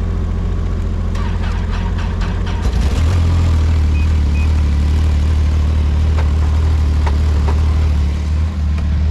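Snowmobile engine idling in about minus 22 °C cold, just after a cold start. A few light clicks come in the first seconds, and about three seconds in the engine note turns deeper and louder, then holds steady.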